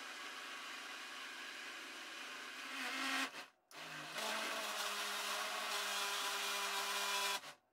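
Countertop blender motor running, blending soaked black-eyed beans, scotch bonnet and onion into a thick batter. It grows louder about three seconds in, stops for a moment, then starts again louder and cuts off abruptly near the end.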